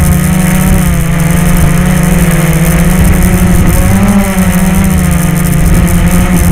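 Blade 350 QX quadcopter's brushless motors and propellers buzzing steadily, heard loud and close from the onboard camera. The pitch wavers a little with throttle and rises briefly about four seconds in.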